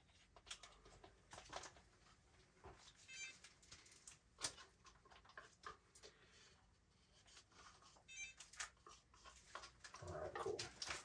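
Near silence with scattered light clicks and taps from plastic paint cups being handled, squeezed and set down on the canvas while acrylic paint is poured, and a short low sound near the end.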